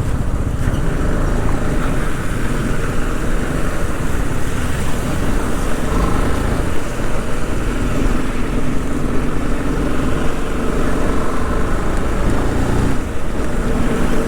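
Motorcycle under way: its engine runs steadily under a constant rush of wind and road noise.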